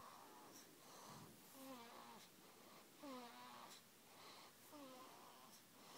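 A baby snoring faintly: short, squeaky, wheezy snores, one with each breath, repeating about every half second to a second.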